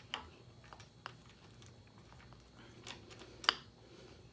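A few light, sharp metal clicks and taps as a double-roller timing chain and cam sprocket are worked by hand onto the camshaft, the gear being shifted a tooth at a time to line up the timing marks. The loudest click comes about three and a half seconds in.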